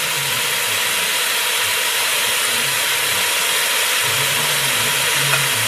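Steady sizzling hiss of rice and shrimp frying in olive oil in a Ninja Foodi multicooker pot.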